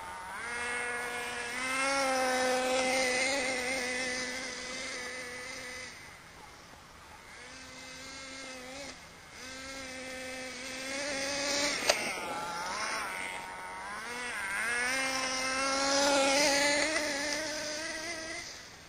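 Small nitro engine of an HPI MT2 radio-controlled stadium truck running and revving as it drives over rough ground. Its pitch rises and falls with the throttle, and it grows louder and fades again several times. There is a sharp knock about twelve seconds in.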